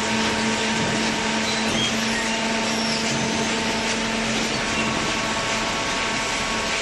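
Hydraulic cardboard baler running: a steady machine drone with a constant hum, from the motor and hydraulic pump.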